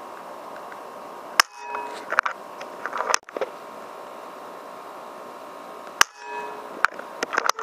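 Two sharp cracks about four and a half seconds apart, typical of PCP air rifle shots, each followed by a second or two of crackly rustling and scraping. A steady hiss with a faint hum runs underneath.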